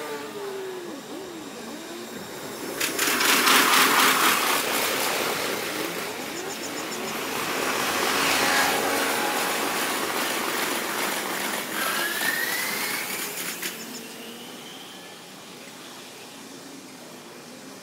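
Sped-up sound of a passing electric train that is out of view: a loud rush comes in suddenly, with rapid clicking of wheels over the rail joints, and a rising whine toward the end before it fades.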